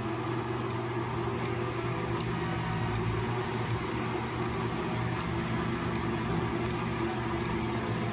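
Frigidaire Gallery front-load washer in its final spin, the motor and drum running with a steady hum. It runs evenly, with no knocking, on its newly replaced suspension springs; the owner judges it sounds good.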